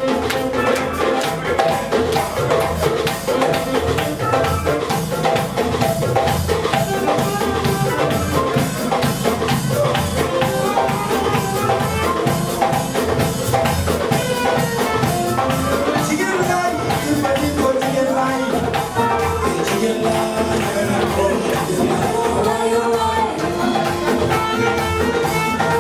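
Live Afro band playing a steady groove, with a hand drum keeping the beat under pitched instruments.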